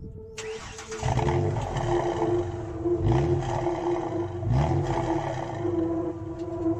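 Exhaust note of a 1998 Ford Explorer Sport's 4.0-litre V6, heard at the tailpipe. It picks up sharply about a second in, then rises and falls as the engine is revved in a few short blips.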